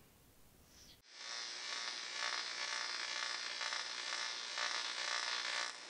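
End-logo sound effect: after about a second of near silence, a steady noisy hiss comes in and holds, then cuts off near the end.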